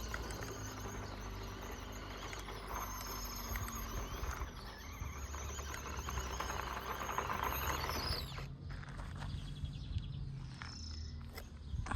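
Small electric RC car running on dirt: a high, wavering motor whine over the rustle of tyres on loose ground, cutting off abruptly about eight seconds in.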